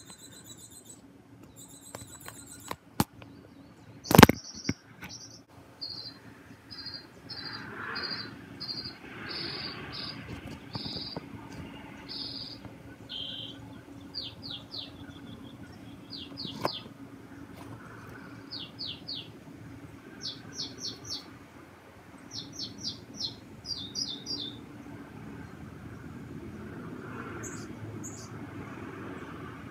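A bird singing at night: a string of varied short high phrases, each repeated several times in quick runs. A sharp knock about four seconds in is the loudest sound.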